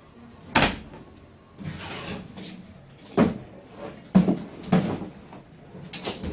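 Old wooden wardrobe doors being opened and handled: a run of about five sharp knocks and clunks, with some rustling between them.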